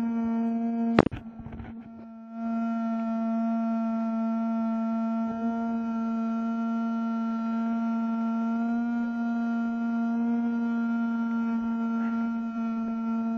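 Steady high-pitched whine of a small fan's motor, close to the microphone. A sharp knock about a second in, after which the whine drops away and comes back about a second later.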